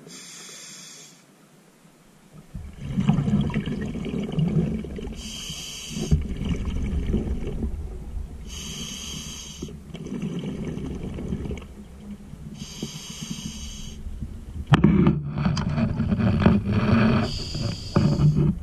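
Scuba diver breathing through a regulator underwater: five short hissing inhales, each followed by a longer stretch of bubbling as the exhaled air vents from the regulator.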